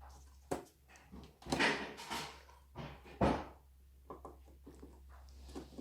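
Clicks, knocks and short rustles from computer parts being handled during a PC build, with the sharpest knock about three seconds in.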